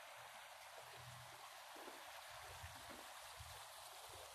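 Faint, steady rush of floodwater flowing and rippling along the creek. From about a second in, soft low buffeting of wind on the microphone comes and goes.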